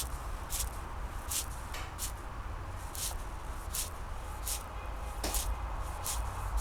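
A butterfly making short, dry hissing bursts, one roughly every 0.7 seconds in an uneven rhythm, over a low rumble.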